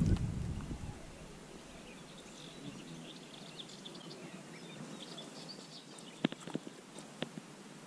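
Quiet riverside ambience with faint birdsong chirping in the middle, a low rumble dying away in the first second, and a few sharp clicks near the end.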